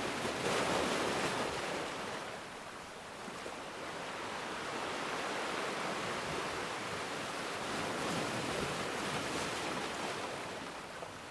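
Sea waves washing ashore in a steady rush, one surge swelling about a second in and another softer one near the end.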